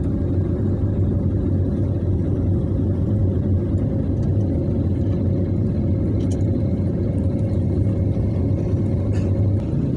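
Steady cabin noise of a jet airliner in flight, heard from a window seat: a deep, even drone of engines and rushing air with a faint higher hum over it.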